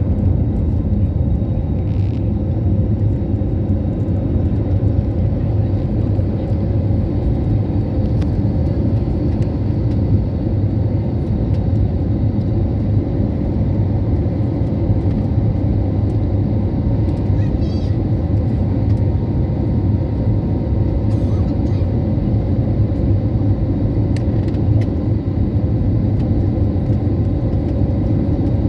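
Airliner cabin noise: the steady low rumble of the jet engines and the airflow, with a faint steady whine above it.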